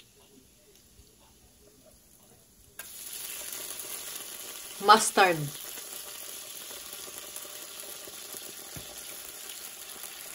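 Minced garlic sizzling in olive oil in a cast-iron skillet, a steady frying hiss that starts abruptly about three seconds in after near quiet.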